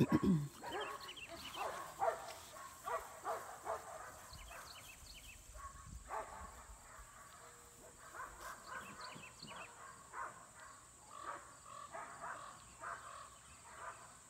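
Ten-week-old Pyredoodle puppies playing, giving many short yips and squeaks, with one louder bark or growl at the very start.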